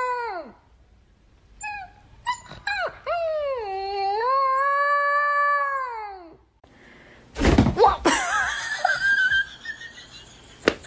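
A dog howling: a falling cry at the start, a few short yips, then one long howl that dips and rises in pitch. After a short pause comes a louder, noisier stretch with a wavering cry in it.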